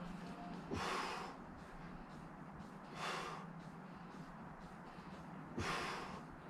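A person breathing hard under exertion, exhaling sharply three times about two and a half seconds apart, one breath for each press of a set of dumbbell chest presses.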